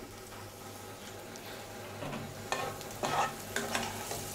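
Chopped shallots sweating in olive oil in a frying pan, sizzling, while a metal spoon stirs and scrapes them around the pan, with the scraping starting about two seconds in. The shallots are being sweated to draw out their flavour without browning.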